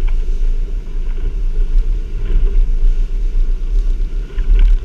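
Motorboat engine running steadily under way while trolling for tuna, a low rumble mixed with the wash of the wake and wind noise.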